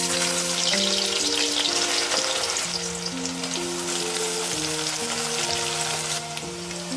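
Food frying in hot oil in a pan, a dense steady sizzle and crackle.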